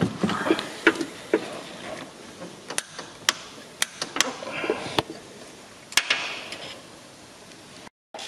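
Irregular clicks and metallic knocks of hand tools working on the engine while the timing belt tensioner is being set, a few of the knocks ringing briefly.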